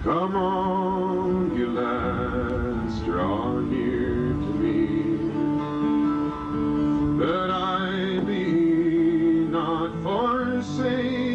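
Live folk performance: a man sings a ballad in long held notes with vibrato, accompanied by acoustic guitar.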